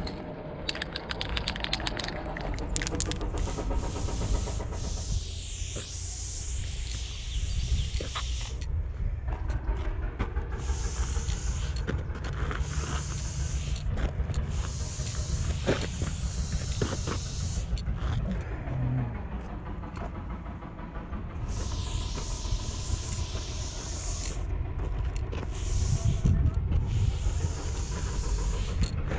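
Aerosol spray paint hissing through a four-needle skinny-cap adapter in repeated sprays of one to several seconds each, with short pauses between, over a steady low rumble.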